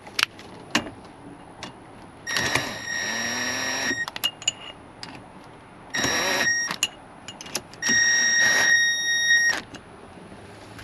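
A cordless power tool runs in three bursts with a steady high whine, tightening the center nut on a steering wheel adapter: the first burst about two seconds long, the second under a second, the third nearly two seconds. A couple of sharp clicks come before it.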